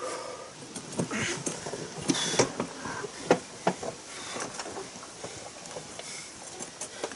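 A two-wheeled hand cart loaded with concrete slabs is hauled over grass, giving scattered knocks and clatter, with two short rushing noises in the first few seconds.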